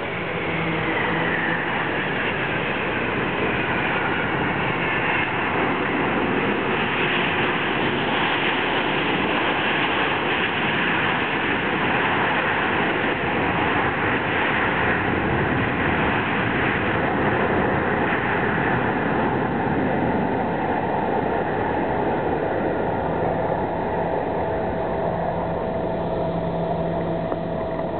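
Boeing 747-400F's four turbofan jet engines, a steady roar heard through touchdown and landing rollout. A whine falls in pitch over the first few seconds. The noise is loudest through the middle of the rollout, as with reverse thrust, and eases after about twenty seconds as the jet slows.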